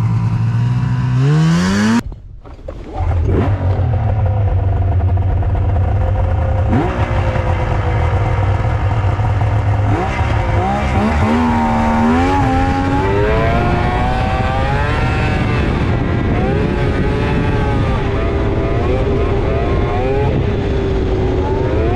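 2000 Yamaha SXR 700 snowmobile's three-cylinder two-stroke engine idling, with a quick rising rev about a second in and a brief drop in level just after. It idles again, then from about ten seconds in accelerates away, its pitch climbing and swinging up and down as it is ridden.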